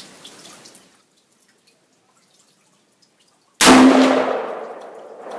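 A single shot from an AR-15 rifle firing a .223 handload, about three and a half seconds in. It is a sharp, very loud crack that rings out and fades over the next second or so.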